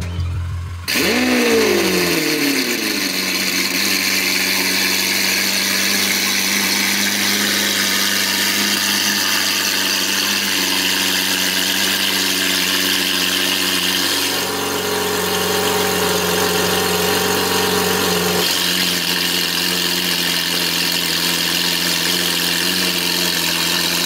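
Lamborghini Aventador SV's V12 starting up through a catless Fi Exhaust full system. It fires about a second in, flares in revs and drops back, then settles into a steady fast idle, typical of a cold start, with the idle note shifting slightly twice later on.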